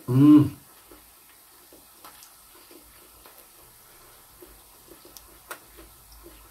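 A man's short voiced sound, about half a second long, right at the start. Then quiet chewing of a hot mouthful with faint scattered mouth clicks and ticks.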